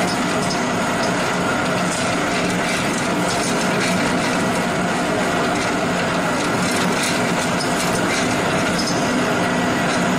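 Wood pellet mill (pelletizer) running in production, a steady dense mechanical rattle over a constant machine hum.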